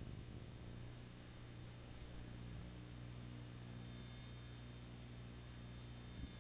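Faint, steady electrical hum from a VCR's captured audio output, with the tape's recorded sound dropped out.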